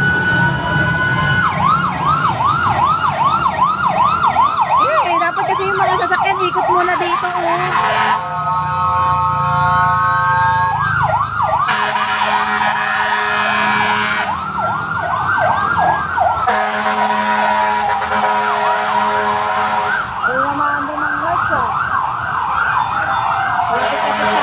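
Fire truck sirens, more than one at once, sounding continuously. They switch between a fast yelp, about two to three sweeps a second, slower rising wails, and stretches of steady held tones.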